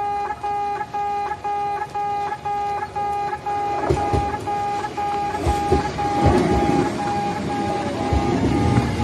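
In-station level-crossing alarm sounding its electronic "pe-pe" beep, about two beeps a second. From about four seconds in, an arriving train grows louder under it, its wheels knocking over the rail joints in pairs.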